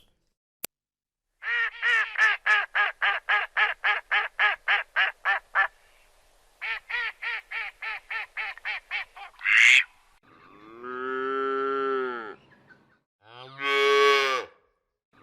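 Domestic white duck quacking in two rapid runs of short quacks, about four a second, followed by a cow mooing in two long, drawn-out calls near the end.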